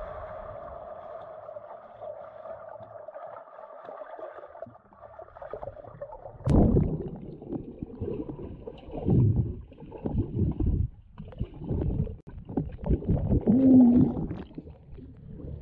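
Muffled underwater sound picked up by a GoPro submerged in a swimming pool. For the first few seconds there is a steady hum. From about six seconds in come loud, irregular rumbles and gurgles of air bubbles and water churning close to the camera, including a burst of bubbles blown straight at it near the end.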